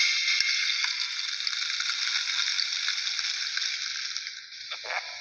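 A Samsung SGH-E630 default ringtone playing through the phone's small speaker: a steady rushing noise with faint held tones. It drops in level about four and a half seconds in, and short swooping sounds follow near the end.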